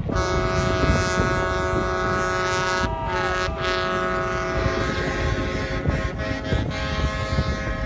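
Several boat horns blowing long, steady blasts together at different pitches, with wind on the microphone; one tone slides down in pitch about three seconds in, and the horns stop shortly before the end.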